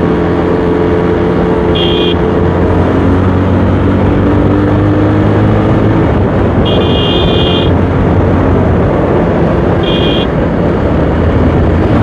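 Motorcycle riding on the road: heavy wind noise over the steady running of the engine. A vehicle horn sounds three times, short beeps about two and ten seconds in and a longer one-second honk about seven seconds in.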